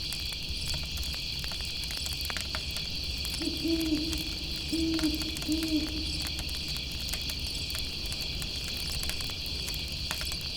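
An owl hooting three times in the middle, a longer low hoot followed by two shorter ones, over a steady chirring of insects and the scattered crackle of a campfire.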